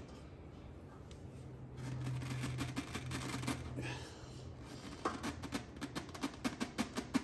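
Hands twisting a tight Motorcraft oil filter on a Ford 6.7L diesel through a shop rag, with no filter wrench: a quick, irregular run of small scuffs and clicks as the rag and grip rub and slip on the metal canister, starting about five seconds in. A faint steady low hum is heard a couple of seconds in.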